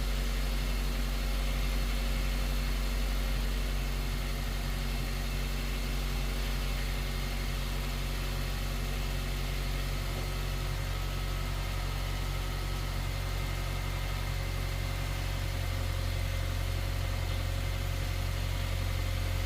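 Honda Fit's four-cylinder engine idling steadily just after starting, then cutting off suddenly at the end. The engine has the shaky idle the customer complains of, which the mechanic traces to two fuel injectors losing pressure.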